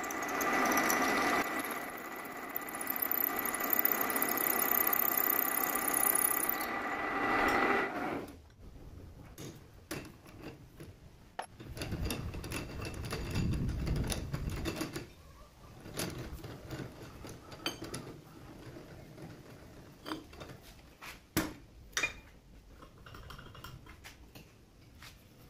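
Metal lathe running with a steady high whine for about eight seconds, then stopping. Afterwards a low rumble for a few seconds, then scattered light clicks and knocks of metal parts being handled.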